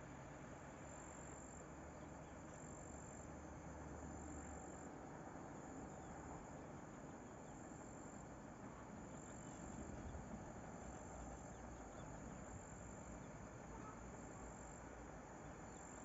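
Faint outdoor background with insects trilling, a thin high-pitched trill that comes and goes over a steady soft hiss.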